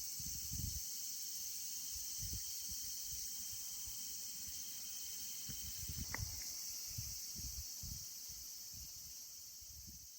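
Steady high-pitched insect chorus with irregular low rumbles underneath and a single faint crackle about six seconds in, fading out near the end.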